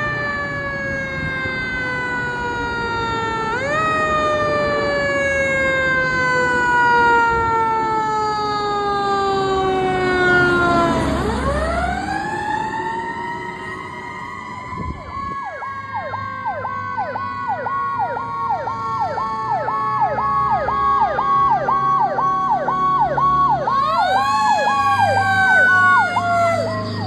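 Fire truck sirens. A wailing siren tone slowly falls in pitch and is pushed back up several times, with a sharp rise near the middle and again near the end. From about halfway through, a second siren yelps rapidly over it, about two to three cycles a second.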